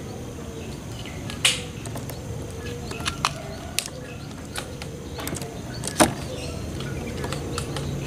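A few sharp taps and clicks as a white collared dove shifts and steps about on its perch inside a slatted cage, the loudest about six seconds in, over a low steady hum.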